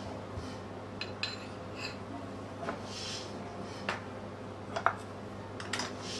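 Ceramic plates and bowls being stacked onto a tray as a table is cleared: a scattering of sharp, separate clinks over a steady low hum.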